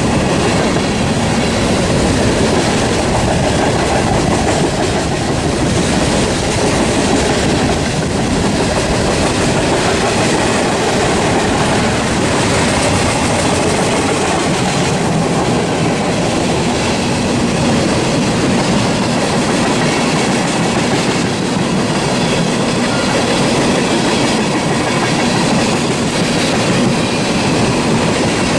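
Norfolk Southern freight train rolling past, its cars' wheels clacking steadily over the rail joints in a loud, continuous stream of noise.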